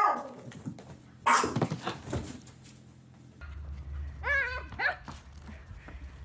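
A dog barking and whining: a couple of sharp barks, then a quick run of short, high rising-and-falling whines about four seconds in.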